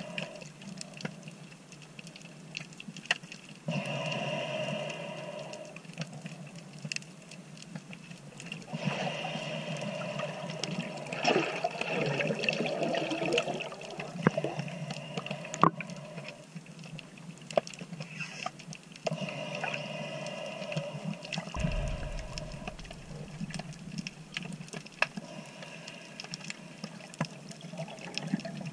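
Underwater ambience heard through a camera's waterproof housing: a steady scatter of sharp clicks and crackles, a few of them louder, with stretches of rushing water noise as the diver swims.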